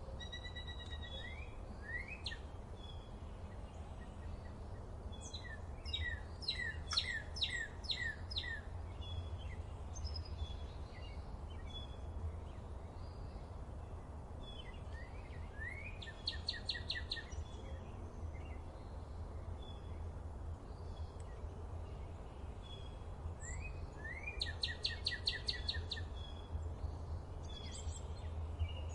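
Songbirds singing in a summer forest: scattered short chirps and whistles, and a rapid trilling phrase that comes three times, roughly every nine seconds. A steady low rumble runs underneath.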